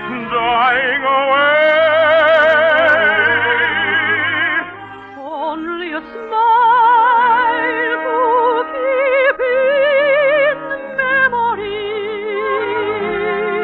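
A soprano singing an operetta song with strong vibrato over an orchestra, on an old radio transcription recording with the high end cut off. The singing breaks briefly about five seconds in, then carries on.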